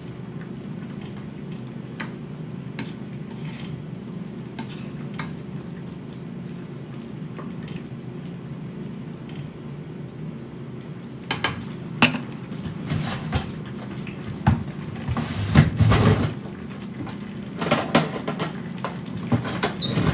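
Cooking utensils clinking and scraping against a frying pan while eggplant is stirred, over a steady low hum. A few light taps come at first; from a little past halfway there are louder, sharper clatters of kitchenware.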